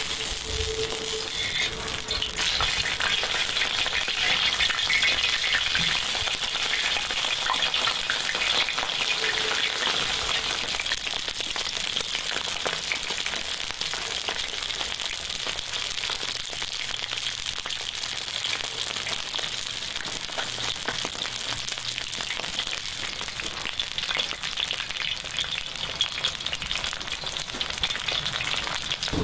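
Two ribeye steaks searing in hot oil in a cast-iron pan: a steady, dense sizzle full of fine crackles.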